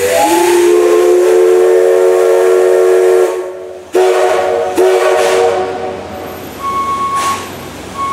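Steam whistle of C11-class tank locomotive C11 325: a long blast of about three seconds that slides up in pitch as it opens, then a second, shorter blast about four seconds in, with a hiss of steam. Two short high beeps come near the end.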